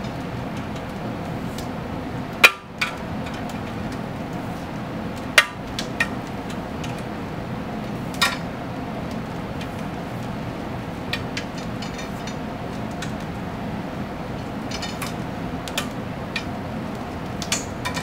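Plastic spiral wrap being wound by hand around a wire bundle on an aluminium printer frame, its loose end clicking and knocking against the frame now and then. The sharpest knock comes about two and a half seconds in. A steady room hum runs underneath.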